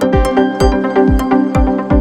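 Electronic dance music with a steady kick drum about two beats a second, quick hi-hat ticks and sustained synth chords.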